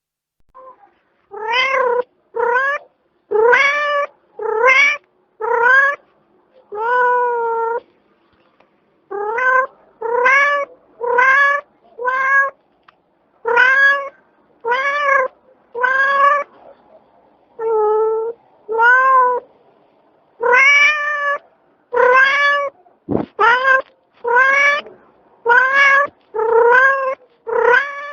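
Cat meowing over and over, about twenty short meows at roughly one a second, each rising and falling in pitch, with a few longer drawn-out ones among them.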